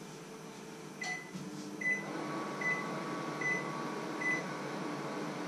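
Microwave oven being set and started: a click, then five short high beeps about 0.8 s apart from its keypad, and the oven's steady running hum starting about two seconds in.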